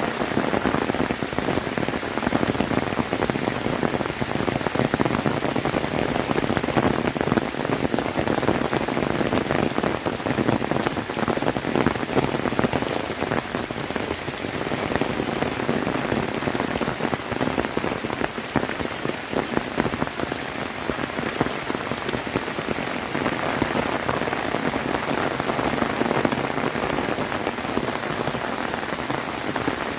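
Heavy rain pouring down steadily, a dense, even patter of countless drops hitting a surface.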